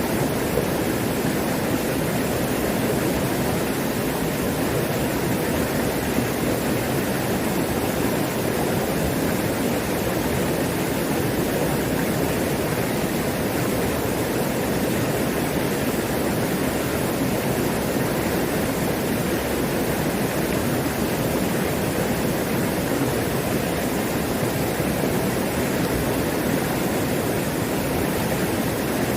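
Mountain stream running high with plenty of water, a steady, unbroken rushing noise of flowing water.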